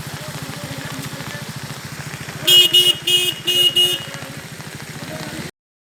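An engine running with a fast, even pulse, and a vehicle horn honked five times in quick succession about two and a half seconds in. The sound cuts off abruptly near the end.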